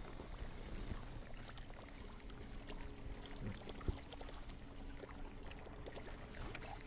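Faint ambience on a fishing boat on open water: a low steady rumble with a faint hum, water lapping, and a couple of light knocks about three and a half and four seconds in.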